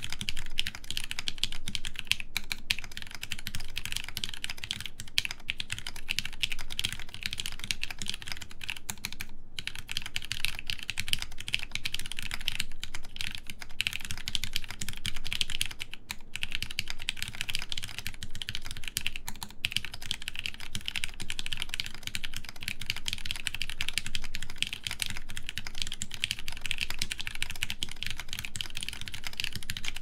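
Continuous typing on a TGR x Linworks Dolice mechanical keyboard with an aluminium full plate, GMK doubleshot ABS keycaps and lubed Hirose-made Cherry MX Orange switches. A dense stream of keystroke clacks, broken now and then by brief pauses.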